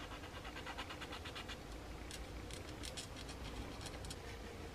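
Sandpaper scraping over a small plastic model-kit part in quick short strokes, a faint scratchy rasp, in two runs with a short pause about one and a half seconds in.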